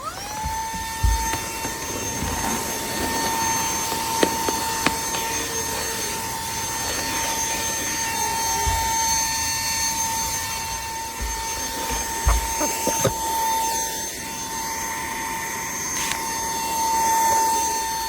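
Cordless handheld vacuum switching on, its motor spinning up within a fraction of a second to a steady high-pitched whine that keeps running. Scattered clicks and knocks sound over it.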